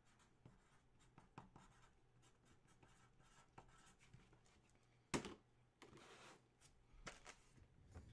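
Faint scratchy strokes of a marker pen writing a name on a trading card, with a sharper knock about five seconds in.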